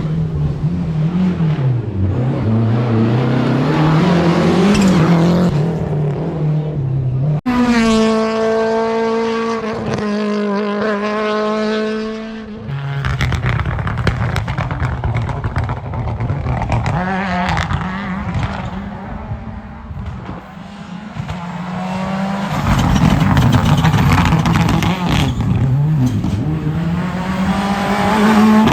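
Rally cars at full throttle, engines revving up and dropping back through gear changes, in a series of clips. About seven seconds in, a car passes with one steady high engine note that slowly falls.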